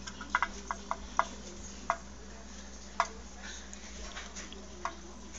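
Tin pop-pop toy steam boat's engine clicking irregularly as its heated boiler flashes water to steam: about eight sharp, tinny clicks, most of them in the first two seconds, then only a few spaced out.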